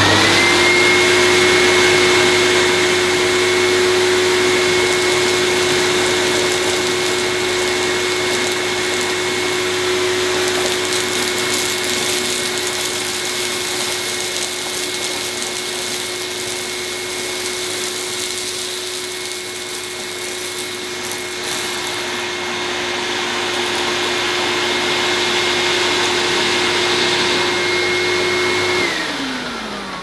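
Vintage Morphy Richards Handy cylinder vacuum cleaner switched on and running with a steady whine over the rush of suction as it picks up dry dirt from a carpet in two passes. Near the end it is switched off and the whine falls away as the motor runs down.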